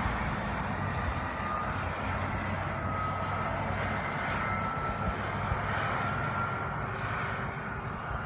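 Stewart & Stevenson M1088 FMTV truck with a Caterpillar 3116 diesel, driving along a highway and heard from a distance: a steady drone with a faint high whine that drifts slightly in pitch.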